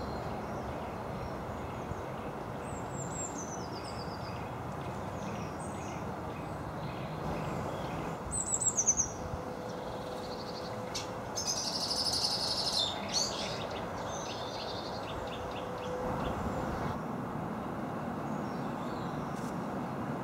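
Garden songbirds singing and calling in short bursts of high notes, several of them falling in pitch, with a louder flurry of song midway, over a steady background rumble.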